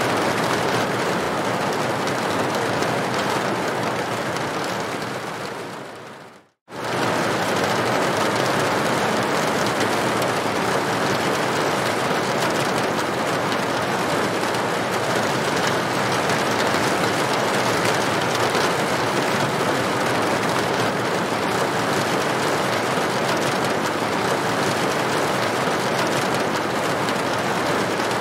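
Rain falling steadily on a corrugated tin roof, an even, dense hiss of drops. Between about four and six seconds in it fades away to an instant of silence, then returns abruptly at full strength and runs on unchanged.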